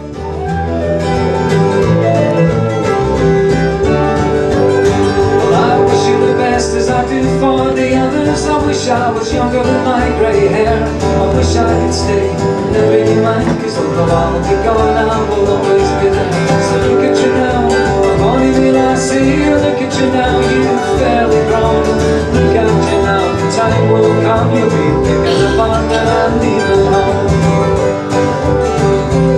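Live folk ensemble playing a tune: a transverse flute over acoustic guitar and keyboard, fading in at the start.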